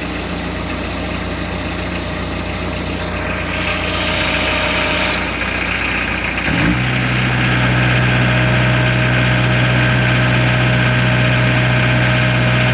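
Combine's diesel engine idling just after being started. About six and a half seconds in, the sound steps up to a louder, steadier low hum.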